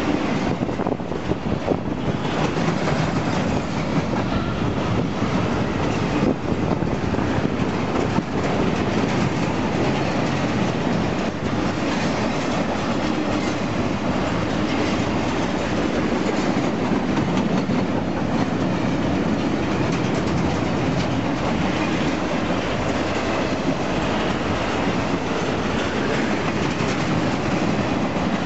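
Empty double-stack intermodal well cars of a freight train rolling past close by: a steady wheel-on-rail rumble with the clickety-clack of wheels striking rail joints.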